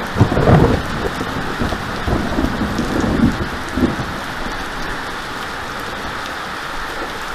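Heavy rain falling steadily on a brick-paved driveway, loud and even, with low rumbling in the first four seconds that then gives way to the plain hiss of the rain.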